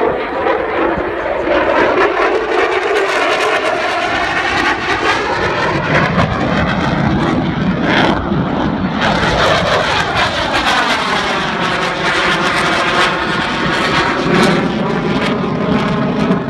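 F-16 fighter jets flying past with a loud, steady jet roar. The sound has a whooshing, phasing sweep that dips as the jets pass by about eight or nine seconds in, then rises again as they move away.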